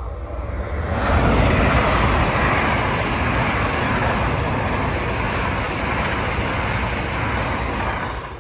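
Great Western Railway Hitachi Intercity Express Train passing close by at speed: a loud, steady noise of wheels on rails that builds over the first second, holds, and falls away near the end as the last coach goes by.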